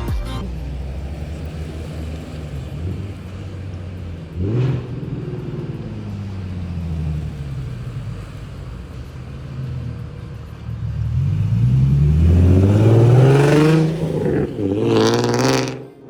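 Nissan 370Z's 3.7-litre V6 running, with a short rev about four seconds in. Near the end it accelerates hard: the engine note rises, drops at a gear change and rises again.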